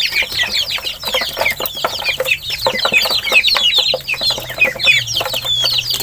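A flock of ducklings and chicks peeping nonstop while feeding, in a dense overlapping stream of short, high, downward-slurred peeps.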